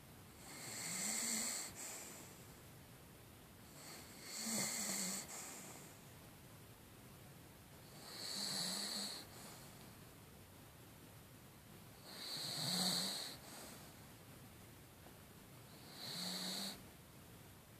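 Dog snoring in its sleep: five slow snores about four seconds apart, each lasting about a second.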